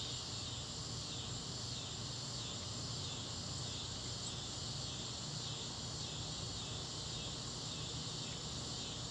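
Insects chirping in a steady high-pitched chorus with a faint pulsing, over a low steady hum.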